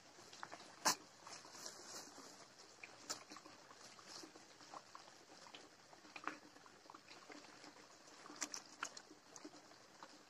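Thin plastic bag crinkling as it is opened, then small raw fish being laid on a banana leaf: scattered soft crackles and taps, with one sharper click about a second in and a few more near the end. Water is poured from a steel tumbler over the fish right at the end.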